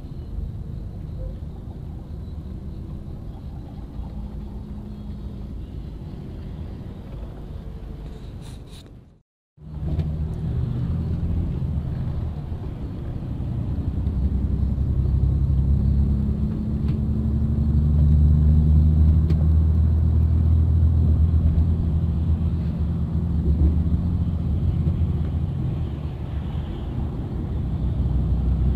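Engine and tyre rumble of a vehicle driving on a highway, heard from inside the cab: a steady low drone with an engine hum. It cuts out completely for a moment about nine seconds in, then comes back louder.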